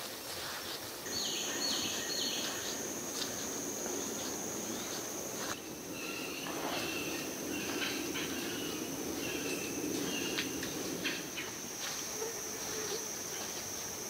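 A steady, high-pitched insect trill that starts about a second in and holds, with a few short bird calls over it.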